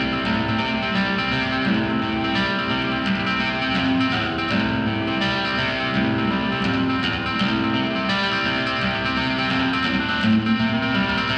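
Nylon-string classical guitar played with the fingers: a continuous flow of plucked notes and chords, with no singing.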